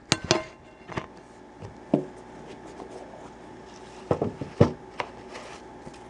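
Clicks, taps and knocks of a watch box being handled and opened, scattered irregularly, over a faint steady hum.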